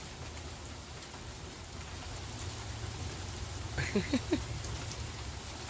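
Steady rain falling, an even hiss. About four seconds in, a short burst of three quick rising notes.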